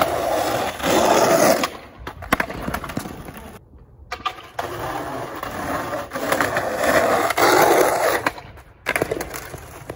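Skateboard wheels rolling loudly over rough, cracked asphalt, with a few sharp clacks of the board. The sound cuts off abruptly twice and picks up again.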